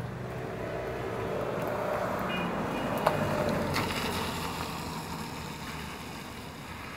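Street traffic: a vehicle passing, its noise swelling to a peak about three seconds in and then fading, with a sharp click near the peak.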